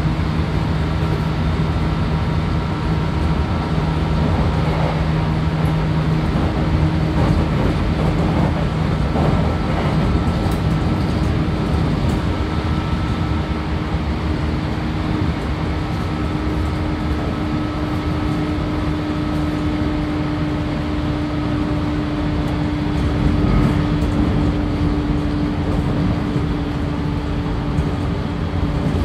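Running sound of a JR Kyushu 813-series 200-subseries electric train, motor car KuMoHa 813-236, heard from inside the passenger car: a steady rumble of wheels on rail with the motors humming. A lower hum fades out about nine seconds in, while a higher hum carries on.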